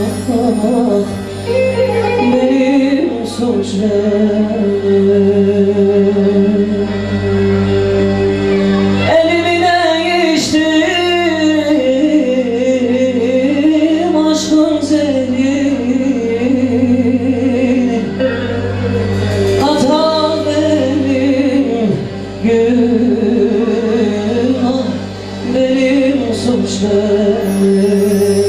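A man singing into a microphone over electronic keyboard backing. His voice line winds and bends up and down above a steady low drone.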